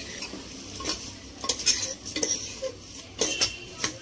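Steel spoon stirring washed rice into frying capsicum masala in a pressure cooker pot, with repeated short scrapes against the pot, over a light sizzle.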